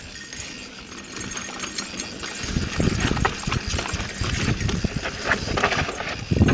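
Yeti SB 4.5 mountain bike descending a steep, rough trail: tyres and frame rattling and clattering over rocks and ruts, growing louder and denser with knocks about two and a half seconds in.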